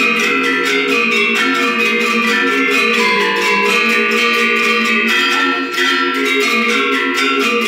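Balinese gender wayang ensemble playing: bronze-keyed metallophones over bamboo resonators, struck with mallets in fast, dense interlocking patterns, many notes ringing together.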